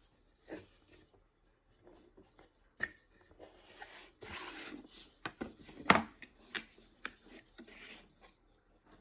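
Handling of computer parts and their packaging: scattered clicks, scrapes and rustling, with a longer rustle about four seconds in and a sharp knock about six seconds in.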